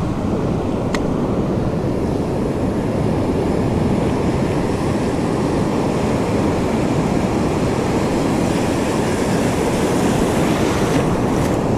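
Wind buffeting the microphone over the steady wash of breaking surf, a dense low rumble, with one sharp click about a second in.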